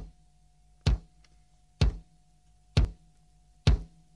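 Five sharp knocks, evenly spaced about once a second, over a faint steady hum.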